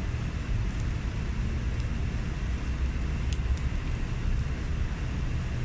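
Steady low rumbling background noise, with one faint tick about three seconds in.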